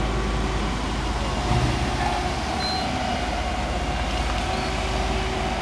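Steady low engine rumble with a faint held whine above it, unbroken throughout.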